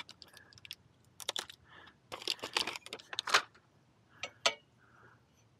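Plastic packaging crackling and rustling as a chrome motorcycle exhaust heat shield is pulled out of it, followed by two sharp clicks about four seconds in as the metal shield is set against the exhaust pipe.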